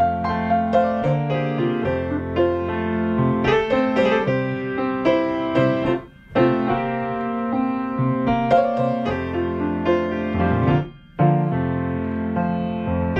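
Solo piano music, with two brief breaks in the playing about six and eleven seconds in.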